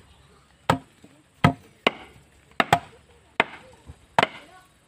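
A blade chopping pieces of palang plant on a wooden block: about eight sharp chops, unevenly spaced, roughly every half second.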